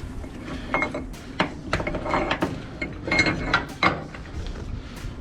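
A wheel-strap ratchet being worked open and the strap pulled out of it: irregular metal clicks and clanks of the ratchet and pawl, a few ringing briefly.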